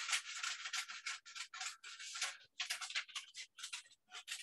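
Scissors cutting through paper: a quick, irregular run of short snips as paper leaf shapes are cut out of a printed sheet.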